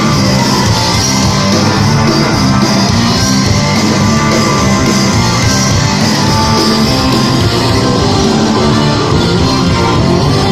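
Rock band playing an instrumental passage live, loud and steady, with guitars to the fore.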